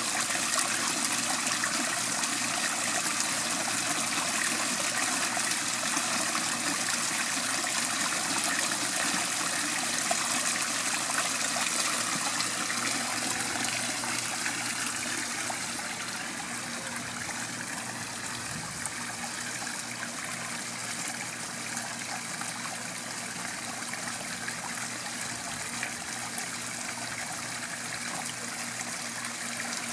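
Small waterfall of a rock-edged garden pond, water splashing steadily over the stones into the pool, a little softer from about halfway through.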